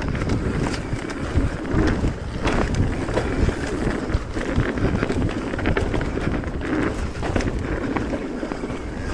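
Wind rushing over the microphone and mountain bike tyres rumbling over a rough dirt trail at speed, with frequent knocks and rattles from the bike.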